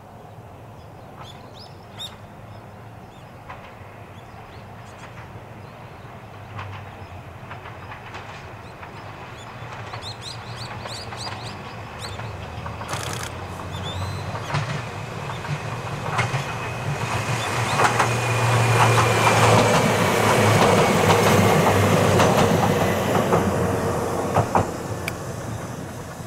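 Ohmi Railway 301F, a chopper-controlled electric train, approaching and passing. The sound builds from faint to loudest a little past the middle, with wheels clacking over rail joints and a thin whine that falls slowly in pitch, then fades away near the end.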